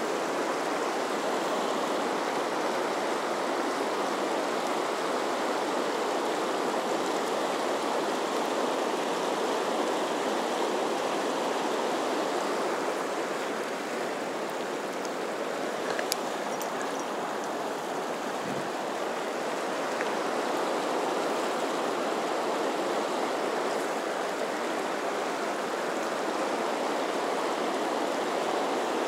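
Steady rush of the Firehole River's fast current, heard close at water level. A single faint tick about halfway through.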